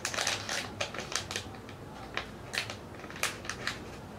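Crinkling and crackling of a plastic packaging pouch being handled while a business card is slipped inside, with irregular crackles, a cluster near the start and more in the second half.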